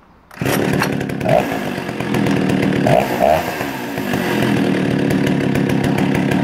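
Vintage Stihl 08S two-stroke chainsaw engine starting suddenly about half a second in, then running loud with a couple of brief rises in engine speed before settling into steady running.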